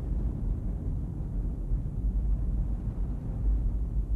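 Deep, steady rumbling of an erupting volcano as its ash column billows.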